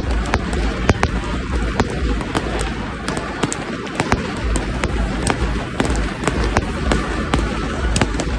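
Fireworks going off: many sharp bangs and cracks at irregular intervals, several a second, over a continuous din with a deep rumble.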